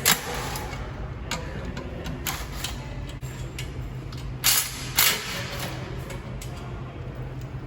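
Scattered metallic clicks and knocks of hand tools and loose engine parts as oil-pump parts are unbolted from a diesel engine, the two sharpest coming about halfway through, over a steady low hum.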